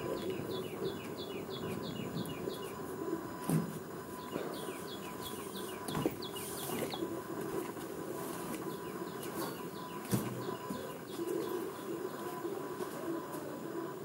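A bird calling in quick runs of high chirps, each note sliding downward, about five a second. The runs last two to three seconds each and come four times. Underneath are a low background murmur and a few soft knocks.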